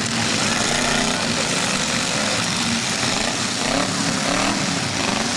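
Demolition derby vehicles' engines running steadily, with the revs rising and falling about three and a half to four and a half seconds in.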